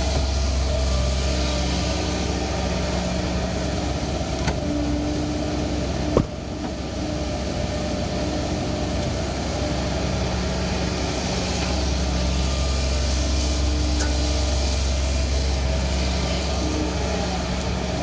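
Kobelco hydraulic excavator's diesel engine running steadily as it digs and swings, its low hum easing off for a few seconds mid-way and swelling again. A single sharp knock comes about six seconds in.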